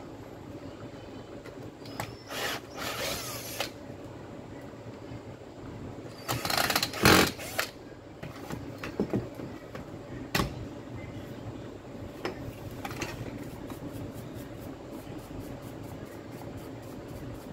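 Hands handling a Makita DDF446 cordless drill's plastic housing and tools during disassembly: scattered scrapes, rattles and clicks over a steady hum, the loudest about seven seconds in.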